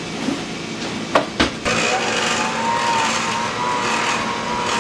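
Oster electric hand mixer beating brownie batter in a bowl. A couple of knocks as it is handled, then the motor switches on about a second and a half in and runs steadily with a slightly wavering whine.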